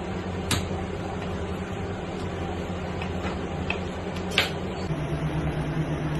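A kitchen knife knocking sharply on a cutting board twice, about half a second in and just past four seconds, with a few fainter ticks, as a tuna loin is cut into blocks. Underneath runs a steady low mechanical hum that changes about five seconds in.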